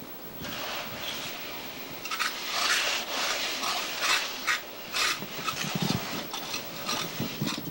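A mason's trowel and wooden float scraping over wet cement plaster on the edge of a masonry slab, in a run of short, irregular scraping strokes.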